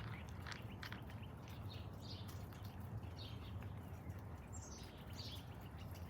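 A cat crunching dry kibble: irregular short crisp crunches, a few a second, over a faint steady low hum.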